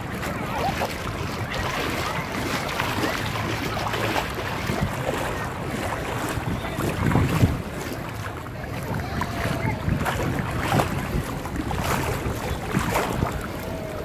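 Wind buffeting the microphone over lapping shallow water around a paddle board, with a louder low gust about seven seconds in.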